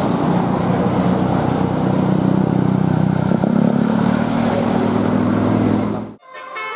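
Bus engine running loud, its pitch rising a little about halfway through as it accelerates. It cuts off abruptly near the end, and the first notes of a telolet musical horn tune begin.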